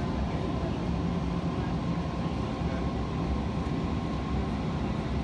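Airport ramp noise: a steady low rumble of jet engines and ground equipment, with a faint thin whine above it.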